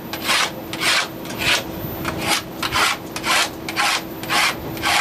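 A knife cutting through a tray of freshly steamed dhokla, in regular back-and-forth scraping strokes about two a second.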